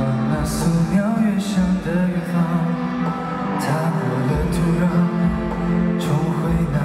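Live pop song performance: band music with a man singing into a handheld microphone.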